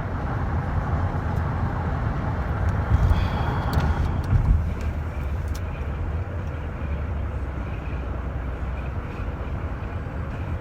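Steady road and engine rumble of a moving car heard from inside the cabin, swelling slightly about three to four seconds in.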